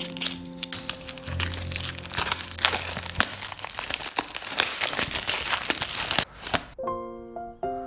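Packaging being crinkled and crumpled by hand: a dense run of crackling for about six and a half seconds that stops abruptly. Soft piano music plays underneath.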